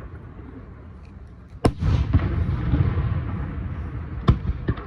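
Fireworks shells bursting overhead: a sharp bang about a second and a half in followed by a long rumbling echo, and another sharp bang near the end with a few smaller cracks.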